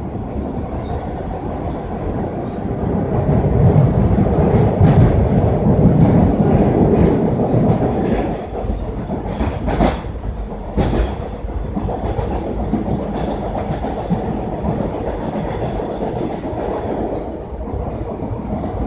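Toronto subway train running along the track, heard from inside the car: a continuous rumble of wheels on rail with clickety-clack over the rail joints. It grows louder for several seconds partway through, and a couple of sharp clicks come later.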